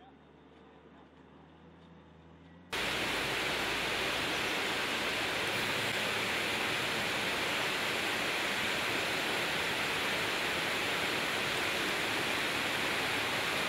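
A quiet stretch with a faint low hum, then, about three seconds in, a loud steady rushing noise that starts abruptly and holds unchanged.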